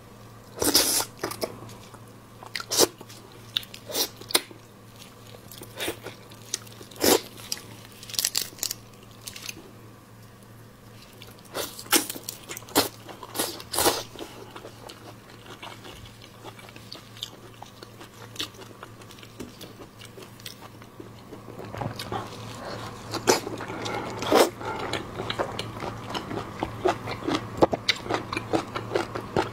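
Close-miked eating sounds of raw prawn: scattered wet smacks, slurps and clicks as the prawn head and flesh are sucked and chewed. From about 22 s in, the small clicks and crackles come thicker and faster.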